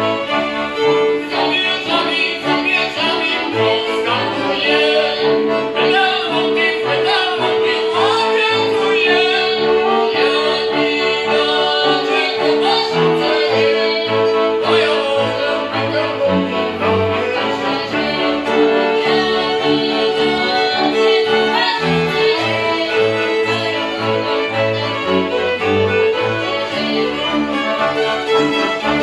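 Live folk string band of fiddles, accordion and bowed cello playing a highland folk tune: fiddles carry the melody over a long held note and a pulsing bass line.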